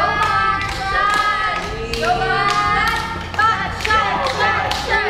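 A group of young people cheering and chanting together, with sharp claps in a steady beat about twice a second.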